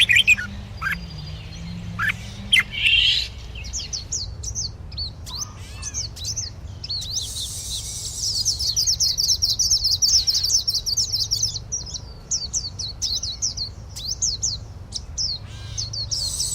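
Bird song: quick, high chirps, scattered at first, then coming several a second in a dense, continuous run through the middle and later part.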